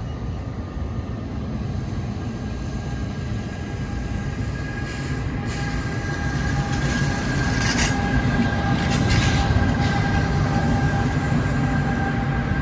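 NJ Transit push-pull train of bilevel coaches rolling past, pushed by an ALP-46A electric locomotive at the rear. A steady rumble of wheels on rail grows louder as the locomotive nears and passes. A thin steady whine joins about four seconds in, with a few sharp clicks.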